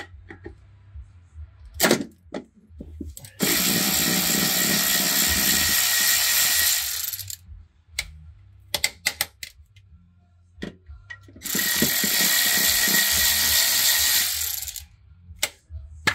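Handheld power tool run twice, for about four and about three and a half seconds, driving out bolts with a socket. Short clicks and knocks of sockets and tools come between the runs.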